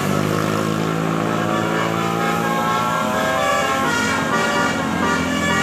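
Bus basuri 'telolet' air horn playing a tune: several horn tones sounding together, some gliding slowly in pitch, over the steady low hum of the bus engine.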